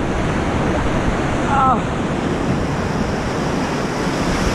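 Loud, steady rushing of whitewater river rapids, with a single short, high call about a second and a half in.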